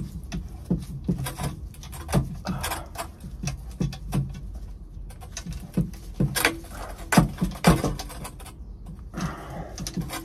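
Small tubing cutter turned by hand around a half-inch copper pipe, cutting out a section of the line. It makes a run of irregular clicks and scrapes, about two or three a second.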